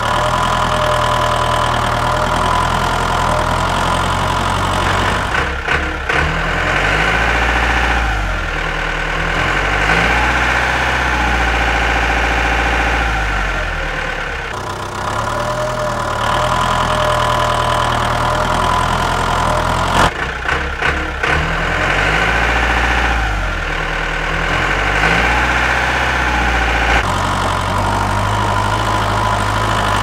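Tractor engine running steadily, rising and falling in pitch now and then.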